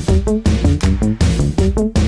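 Electronic music with a fast, driving beat and a deep bass line.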